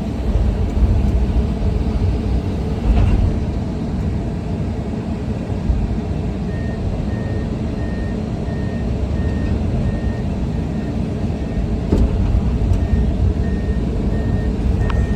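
Komatsu 210 excavator's diesel engine running with a steady low rumble. About halfway through, a warning alarm starts beeping about twice a second, stops for a moment, and resumes near the end. There is a single sharp knock between the two runs of beeps.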